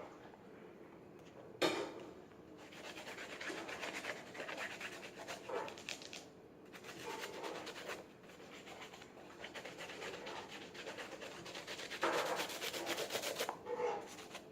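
Rapid back-and-forth scrubbing on a canvas sneaker, a continuous rough rubbing that grows louder for a while near the end. A short knock about two seconds in.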